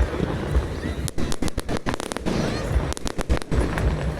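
Fireworks going off: rapid clusters of sharp crackling bangs, one burst of crackles about a second in and another about three seconds in, over a low steady rumble.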